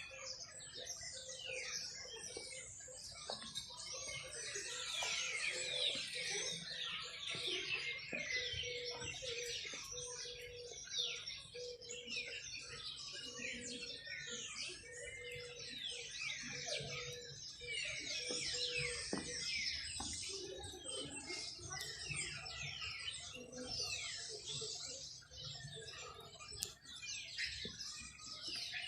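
A large flock of small birds chirping and twittering all at once: a dense, unbroken chorus of short, high, falling chirps.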